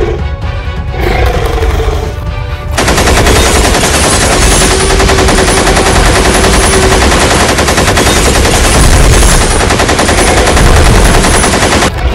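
Rapid automatic rifle fire in one long unbroken burst, starting about three seconds in and running for about nine seconds, over music.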